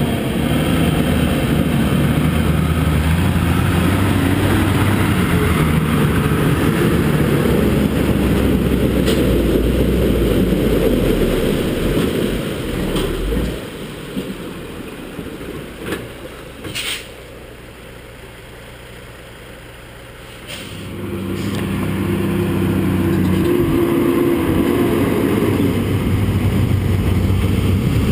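Road train's diesel engine running under load as the truck drives through a river crossing, with water splashing around its wheels. About halfway through the sound drops away to a quieter rumble for several seconds with a few sharp knocks, then the engine and splashing come back loud.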